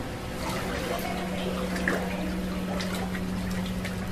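Shallow floodwater splashing and dripping in short irregular bursts, over a steady low hum.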